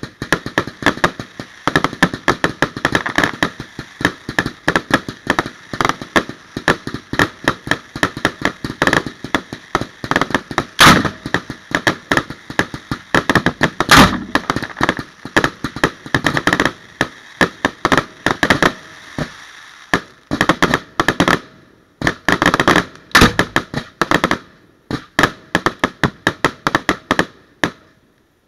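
Fireworks going off in a rapid, continuous barrage of sharp cracks and bangs, with a few much louder booms among them. The barrage slackens briefly about two-thirds of the way in, then picks up again before thinning out and stopping just before the end.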